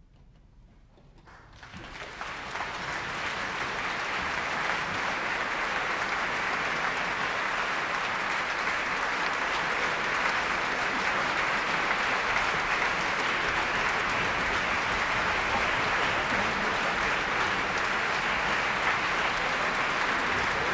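Audience applause breaks out after a second or so of quiet, swelling over about two seconds into steady clapping that holds.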